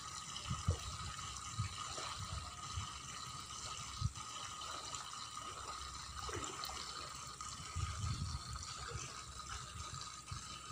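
Soft water sloshing and lapping from someone wading through a shallow pond, in irregular low swells with a few faint knocks, over a faint steady high tone.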